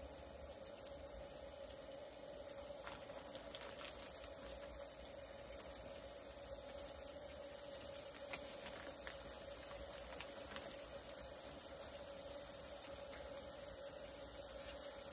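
Catfish pieces sizzling steadily as they fry in a pan on a butane camp stove, with a few faint clicks.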